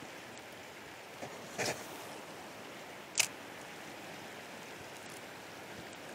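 Shallow river riffle rushing steadily over stones. A brief soft knock comes about a second and a half in, and a sharp click about three seconds in.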